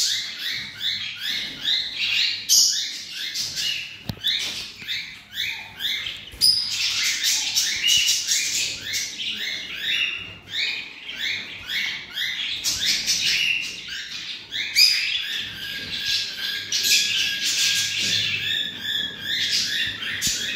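Caged lovebirds and budgies chirping and chattering: a dense run of shrill, rapid chirps, several a second, with a held whistle-like note in the last few seconds.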